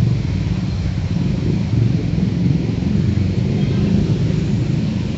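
Steady low rumble of road traffic on a rain-wet city street, with a constant hiss over it.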